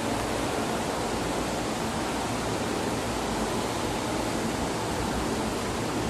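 Orient New Breeze 1200 mm ceiling fan running at speed: a steady, even rush of air from the spinning blades.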